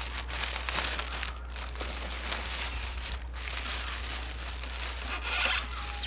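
Clear plastic bag crinkling and rustling as it is pulled off a printer, with a louder crinkle about five seconds in.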